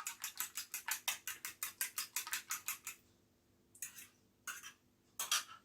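Eggs being beaten in a bowl with a utensil: quick, even clicks against the bowl at about six a second, stopping about three seconds in, followed by three separate knocks or scrapes.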